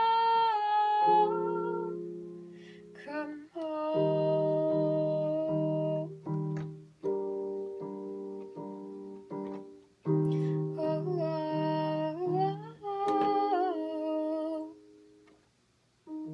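Digital keyboard playing slow, sustained piano-style chords with a low note repeated in an even pulse, under a woman's wordless humming whose held notes waver and bend. The playing dies away about fifteen seconds in, and a new chord starts at the very end.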